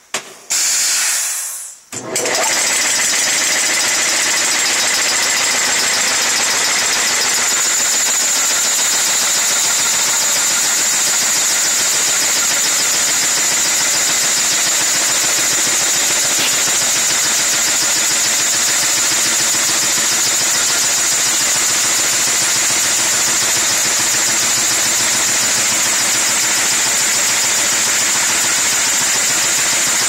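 Vertical sawmill running and cutting through a log as powered spiked rollers feed it past the saw: a loud, steady mechanical noise with a strong high hiss that settles in about two seconds in, after a short burst.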